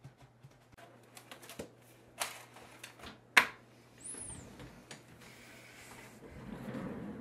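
Handling noises: a run of light clicks and taps, a sharp knock about three and a half seconds in, a short high squeak, then fabric rustling, over a steady low hum.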